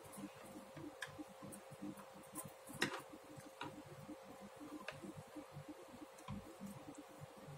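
Metal knitting needles clicking lightly and irregularly against each other during hand knitting, over a faint steady hum.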